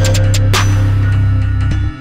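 Electronic background music with a heavy held bass, ticking hi-hats and a cymbal crash about half a second in; the bass cuts off near the end.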